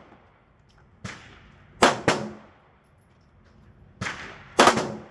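Pistol shots at a range, about six in all. The loudest come in two close pairs, just before 2 s and near 4.7 s, each with a ringing tail.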